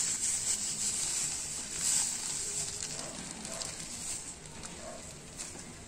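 Granulated sugar pouring from a plastic bag onto a paste in a plastic bowl: a soft hissing rustle, strongest in the first couple of seconds and tapering off toward the end.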